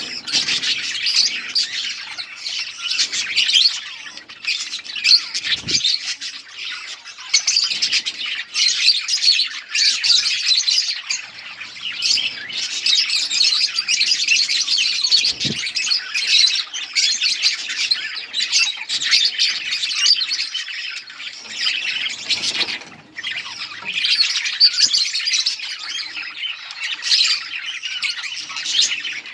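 A flock of budgerigars chattering, with many overlapping chirps and squawks. Two brief low thumps come through about a third and halfway in.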